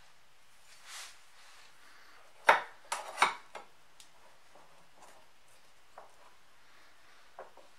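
Steel planer knife being fitted into the Kity 642 sharpener's metal knife holder by hand: a soft rub about a second in, then a loud metal clank and a quick couple of knocks about two and a half to three seconds in, with a few light taps after.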